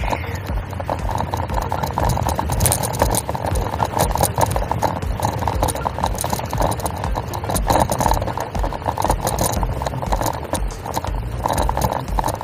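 Bicycle riding noise: wind rumbling in pulses on the handlebar-mounted microphone, with a fast, continuous rattle and clatter from the bike rolling over the asphalt path.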